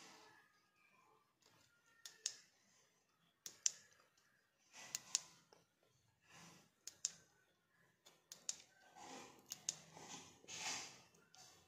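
Faint clicks of a plastic tail light's push-button being pressed, mostly in pairs about a fifth of a second apart, recurring every second or two. Soft handling rustle grows towards the end.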